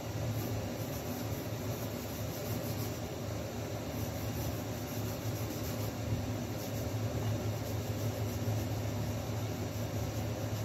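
Steady low hum with an even hiss over it: room noise.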